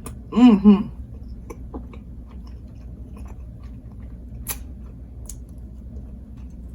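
Close-up mouth sounds of a person chewing chapati and egusi soup, with scattered small wet clicks and smacks. A short hummed "mm-mm" of enjoyment comes about half a second in.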